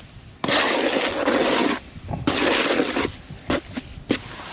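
Wet sand, cement and lime render being scraped and worked with a tool: two long, gritty scraping strokes, then a few short knocks near the end.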